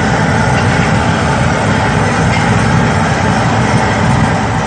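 Potato sticks deep-frying in a large wok of bubbling oil: a steady sizzle over a constant low rumble.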